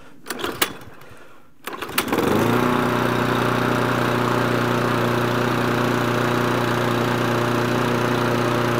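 A petrol walk-behind lawn mower's engine is pull-started from cold. After a few clicks and the pull, it catches about two seconds in and runs at a steady, even speed.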